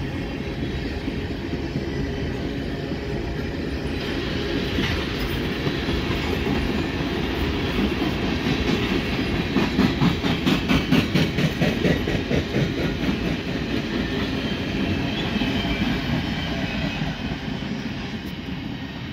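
Freight train tank cars rolling past: a steady rumble of steel wheels on rail, with a run of rhythmic clickety-clack as wheels cross rail joints about halfway through, which is the loudest part. The sound eases off toward the end as the train pulls away.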